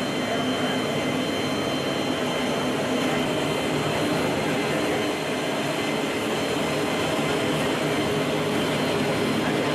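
Steady drone of a military transport aircraft's engines heard from inside the cabin, with a thin high whine over it.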